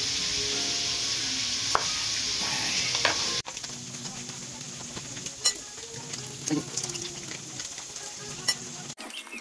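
Kitchen sounds: a steady sizzling hiss with a couple of faint knife taps on a wooden cutting board. About three and a half seconds in, the sound cuts off abruptly. What follows is quieter, with a few light clinks of utensils against a ceramic bowl.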